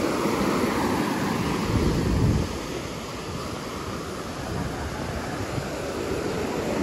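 Ocean surf washing onto a sandy beach, a steady roar of breaking waves with wind on the microphone. It swells louder about two seconds in.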